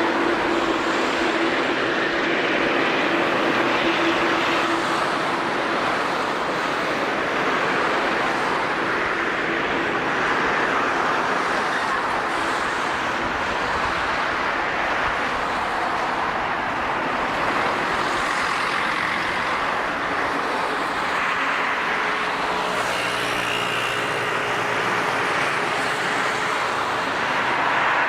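Steady noise of jet airliner engines, with faint steady hum-like tones running under it.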